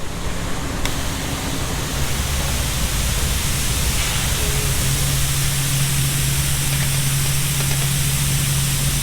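Grain truck running under a steady loud rushing noise, its low engine hum growing stronger about halfway through.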